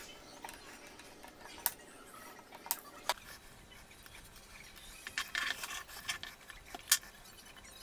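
Faint, scattered light clicks and ticks of small electronic parts and a soldering iron being handled on a drone's ESC board, with a few sharper ticks and a short cluster of them a little past the middle.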